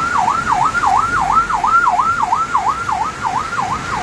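Emergency-vehicle siren sounding a fast yelp, its pitch rising and falling about three times a second, over the steady rush of the flooded river.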